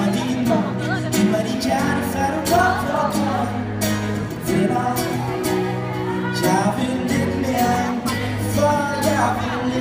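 Live pop band playing: singing into a microphone over acoustic guitar and a steady beat, heard through the venue's speakers from the audience.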